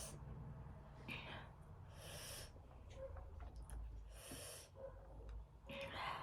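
Mouth and breath sounds of eating spicy ramen: short hissing intakes of air, about two seconds apart, with softer mouth noises between.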